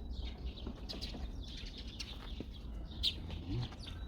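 Birds chirping, with short high calls scattered throughout and the strongest about three seconds in, over a steady low rumble.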